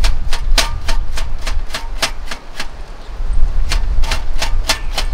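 Kitchen knife chopping carrot on a cutting board: a steady run of sharp cuts, about four a second, that pauses for about a second midway and then resumes.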